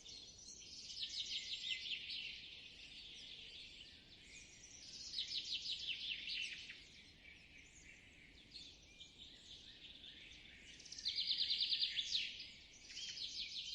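Forest ambience with songbirds singing: rapid trilled phrases come every few seconds, the loudest about eleven seconds in, over a faint steady background hiss.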